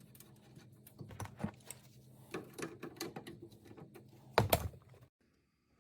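Light clicks and taps of a steering wheel being worked onto the splined shaft of a new steering column, with one louder knock about four and a half seconds in; the sound cuts off suddenly near the end.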